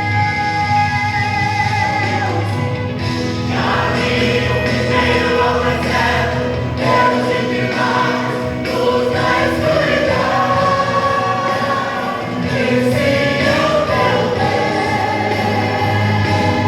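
Church vocal group singing a gospel song, several voices together in a choir-like blend.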